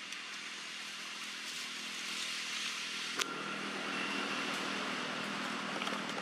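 Steady outdoor background hiss with a faint low hum under it, and one sharp click a little past three seconds in.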